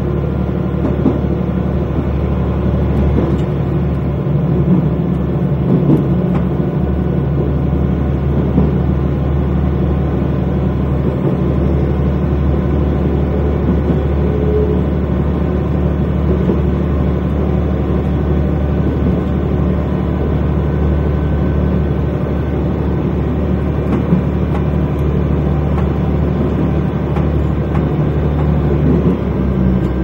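KiHa 120 diesel railcar running at steady speed: a steady diesel engine drone with the rumble of wheels on the rails.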